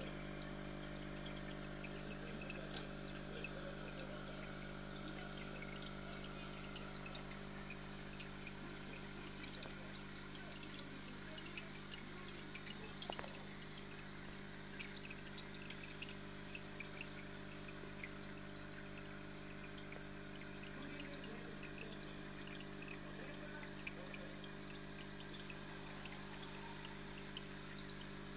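Aquarium water trickling and splashing with many tiny pops, over a steady electric hum from the tank's pump, with one light knock about halfway through.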